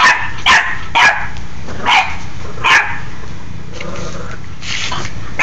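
Bulldog puppy barking at a push broom: five short, high barks in the first three seconds, then a pause.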